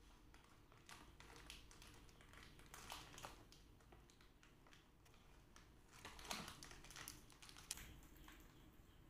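Faint crinkling and crackling of a plastic wafer-roll bag being handled, in short scattered spells, loudest about three seconds in and again around six to eight seconds in.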